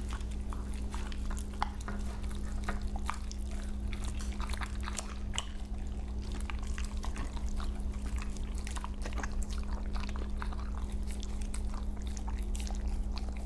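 Two Siberian huskies eating raw ground chicken patty mix close to a microphone: many wet smacks, clicks and licks of chewing, over a steady low hum.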